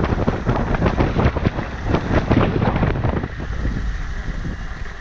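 Wind buffeting the microphone of a camera mounted on the outside of a moving four-wheel drive, over the rumble of its engine and tyres on a sandy dirt track. The buffeting eases about three seconds in.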